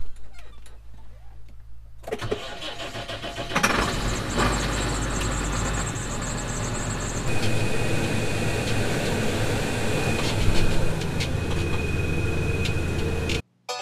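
AGCO DT205B tractor engine running in the field, heard from inside the cab, in short clips that change abruptly. A steady high whine joins about seven seconds in, and everything cuts off suddenly near the end.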